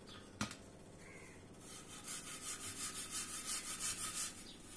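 Wire cup brush scrubbed back and forth by hand on a rusted motorcycle spoke rim, taking off the rust: a raspy scraping in even strokes, about four a second, that starts a little under two seconds in. A single sharp click near the start.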